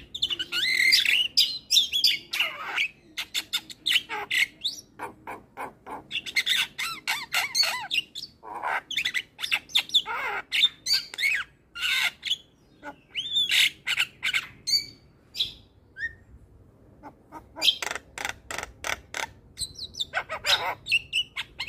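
Javan myna (jalak kebo) singing a long, varied song: fast runs of sharp clicks, harsh squawks and whistled glides, with a short pause about two-thirds of the way in.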